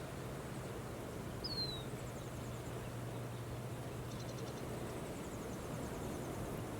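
Steady wind noise, with a single short bird chirp falling in pitch about a second and a half in and faint, rapid high trills of birds in the background.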